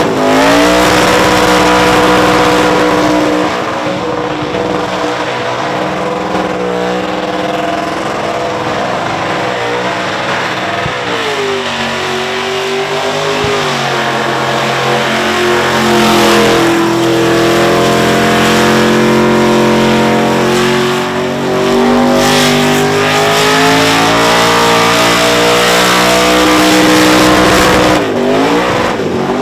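Supercharged engine of a VK Holden Commodore screaming at high revs through a burnout, its rear tyres spinning in clouds of smoke. The revs drop and climb again several times: near the start, about a third of the way in, past two-thirds and near the end.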